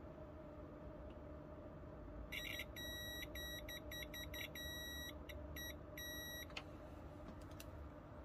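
Multimeter continuity beeper sounding in a broken run of short and longer beeps as the test probes make and lose contact on a model train's circuit board, each beep a sign of an unbroken connection. The beeping starts about two seconds in and stops a little over six seconds in, over a faint steady hum.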